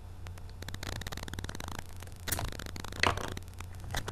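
Sealed trading-card packs and their cardboard box being handled and shuffled: a steady crinkling and rustling of the wrappers, with two louder scrapes a little after two seconds and about three seconds in.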